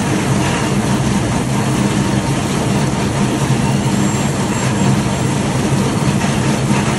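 Heavy farm machinery running steadily: an even low engine hum with a dense, constant noise over it.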